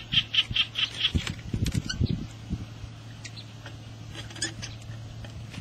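Rustling and soft knocks of a mesh net and gloved hands working at a hole in dry soil. Over the first second comes a fast run of high chirping calls, about five a second. From about two seconds in there is a low steady hum.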